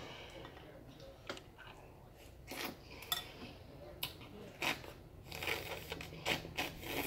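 Close-up eating sounds from a bowl of seafood gumbo: a spoon clinking and scraping against the bowl, with mouth smacks and chewing in a string of short separate clicks.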